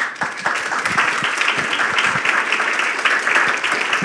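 Audience applauding, many hands clapping together; the applause starts abruptly and holds steady.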